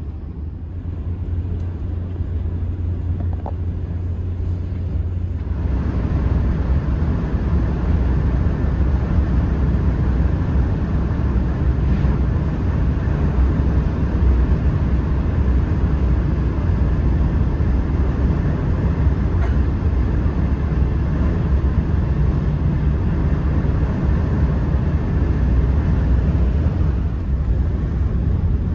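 Cabin noise of a TGV Euroduplex running at high speed on a high-speed line: a steady low rumble with a hiss of wheels and air, growing louder about five seconds in as the train picks up speed, then holding steady.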